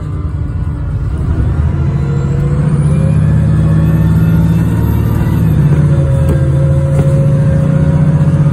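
VDL SB200 bus under hard acceleration, heard from inside the saloon: the diesel engine's drone builds from about a second and a half in, along with the whine of its Voith automatic gearbox and a thin high whine that climbs in pitch. The engine note dips briefly a little past the middle and then picks up again.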